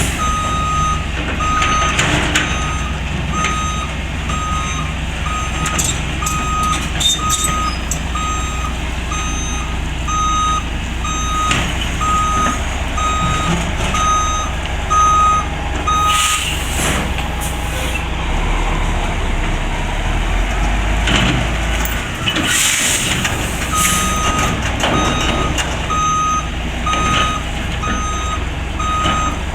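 Reversing alarm on heavy demolition machinery beeping steadily about once a second over a running diesel engine. The beeping stops about halfway through and starts again a few seconds before the end. In the gap the engine note deepens and there are a few crashes.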